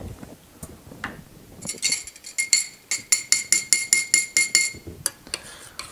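A metal utensil clinking quickly against a stainless steel saucepan, about five ringing clinks a second for some three seconds, after a couple of soft knocks.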